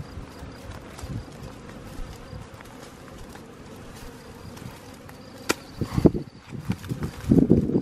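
Honeybee swarm buzzing steadily around a cluster hanging in a bush. A sharp click comes about two-thirds of the way in, and louder crackling rustles of branches and leaves near the end.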